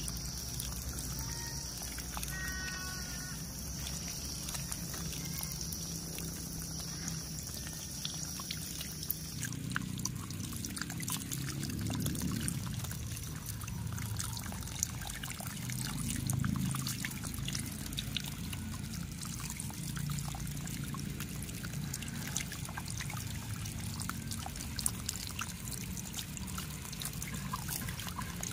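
A steady stream of water from a hose pouring and splashing over small plastic toys held in a hand, then dribbling down onto a plastic sheet.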